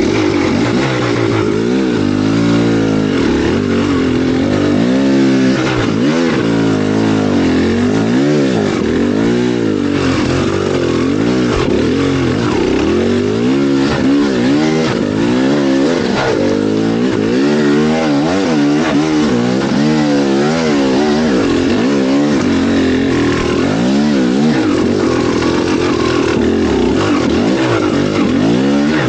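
A vehicle engine running hard and revving up and down over and over, its pitch rising and falling about once a second as the throttle is worked.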